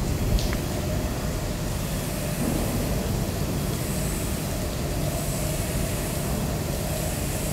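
Steady low rumble with a faint held hum over it, and a small click about half a second in.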